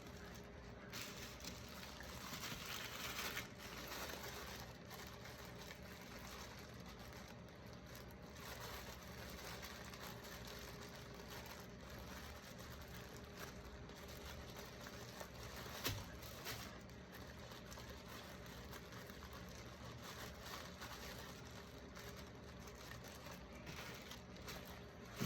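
Faint, soft handling sounds of hands cutting, twisting and shaping strips of rolled wheat-flour dough for tarae-gwa, over a steady low hum, with a small click about sixteen seconds in.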